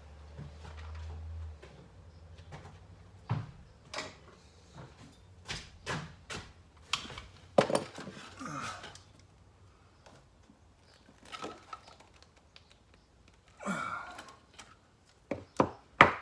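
Handling noises from work on an electrical outlet box and its wiring: scattered clicks, knocks and rustles at irregular intervals, with a low hum that stops about a second and a half in.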